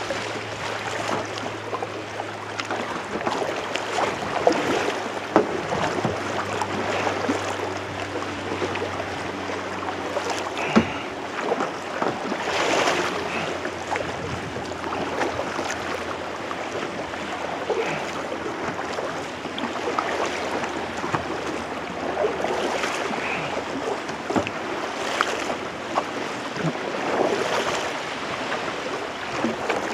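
Kayak paddle strokes pulling through sea water, a swish about every two and a half seconds, over steady lapping and splashing of water around the hull.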